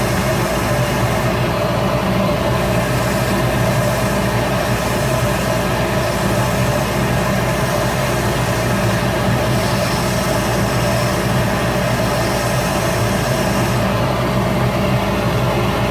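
Shop Fox W1836 midi wood lathe running steadily, its motor humming with a constant pitch, under a hiss that thins briefly about a second and a half in and again near the end.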